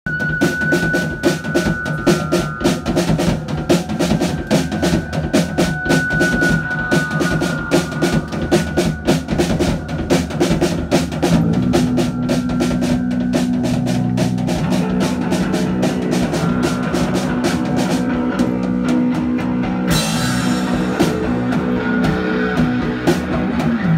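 Live punk rock band playing loud: a fast, busy drum-kit beat carries the first half, then held electric guitar and bass notes ring over the drums from about halfway, with a bright crash coming in near the end.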